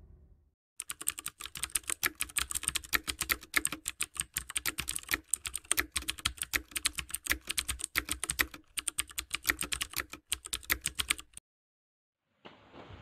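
Rapid computer-keyboard typing clicks: a typing sound effect for on-screen text typing itself out. It starts about a second in and stops abruptly about a second and a half before the end.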